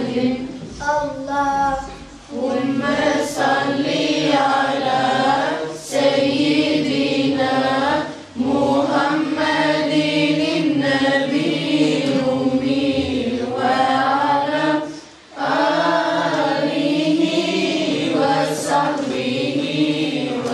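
A group of girls singing a devotional hymn together, unaccompanied. It goes in long phrases with brief pauses for breath about every six or seven seconds.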